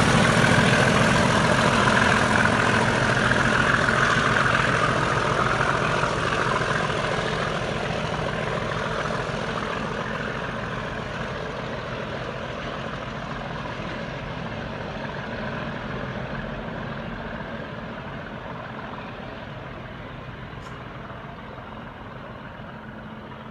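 Class 37 diesel locomotive's English Electric V12 engine running with a steady low note, fading gradually as the locomotive moves away.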